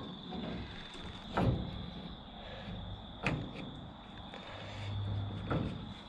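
Three separate clunks about two seconds apart, the first the loudest: parts being handled and fitted while a power steering shaft is mocked up.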